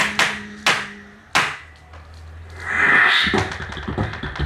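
Live tap-and-beatbox routine: three sharp hits in the first second and a half, a lull with a low hum and a short hiss, then a fast run of tap-shoe clicks on a tap board starting about three seconds in.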